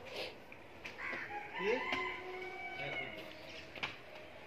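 A rooster crowing once, a call of about two seconds that rises at the start and then holds, with a sharp knock near the start and another near the end.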